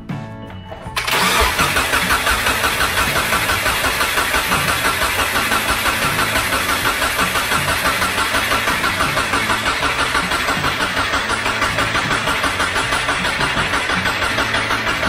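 2006 Subaru Impreza's 2.5L single-cam flat-four being turned over by the starter with the crank sensor unplugged, so it cranks without firing: a steady, rhythmic cranking that begins about a second in. The engine is dry and is being cranked to build up oil pressure.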